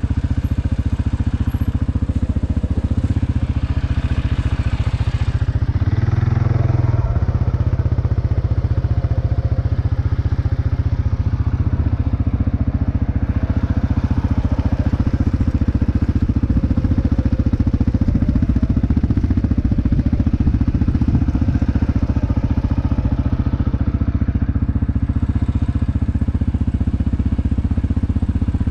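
CF Moto 520S ATV's single-cylinder four-stroke engine running steadily while riding, with a brief louder surge about six seconds in as the throttle opens.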